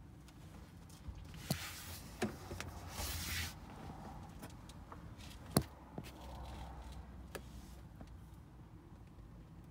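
Handling sounds inside a car's cabin: a few sharp clicks and knocks, the loudest about five and a half seconds in, with a brief rustle about three seconds in, over a low steady background.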